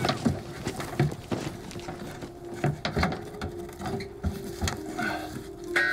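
Irregular knocks, taps and scraping as a rescue grasper pole is worked through a cramped loft among cables and plasterboard.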